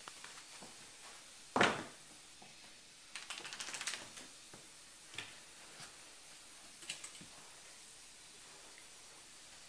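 An Italian Greyhound's claws clicking and scrabbling on a hard floor in short runs of quick taps, with one louder thump about one and a half seconds in.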